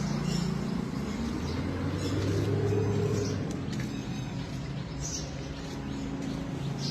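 Motor vehicle engine running steadily, with a few light clicks over it.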